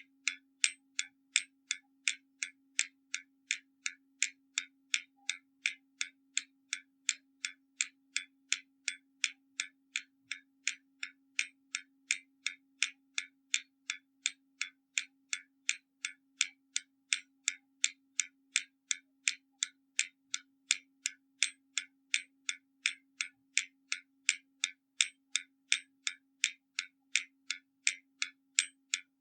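Hermle mechanical skeleton clock ticking steadily, with sharp, even ticks at about two to three a second.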